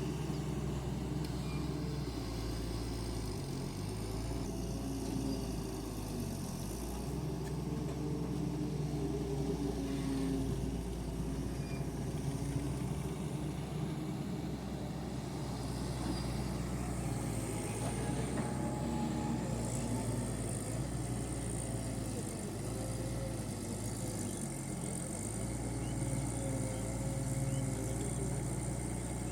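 Large excavator's diesel engine running steadily, its pitch dipping briefly three times.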